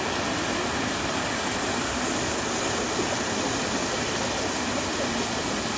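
Jet fountains spraying up and falling back into a shallow pool: a steady, even rush of splashing water.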